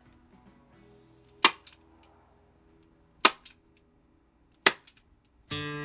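Three sharp snaps of a hand staple gun, about one and a half seconds apart, fastening the hide at the base of a deer mount.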